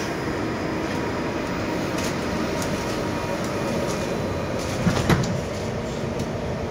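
Interior of an 81-775.2/776.2/777.2 "Moscow 2024" metro car standing at a station, with a steady hum. About five seconds in, the sliding passenger doors shut with a couple of sharp knocks.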